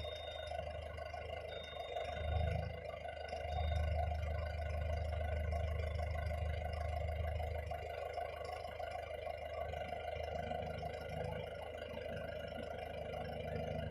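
Vehicle engine running steadily, with a heavier low rumble rising for a few seconds from about three and a half seconds in.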